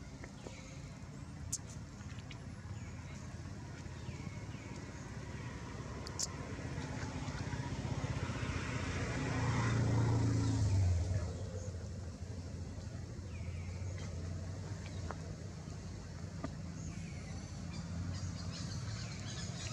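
A motor vehicle's engine passing close by: a low hum that swells to its loudest about ten seconds in, then drops away suddenly, leaving a steadier low engine hum.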